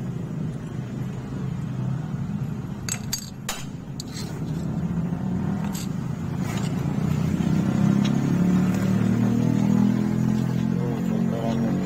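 An engine running steadily in the background, getting louder in the second half, with a few sharp clinks of small metal engine parts being handled.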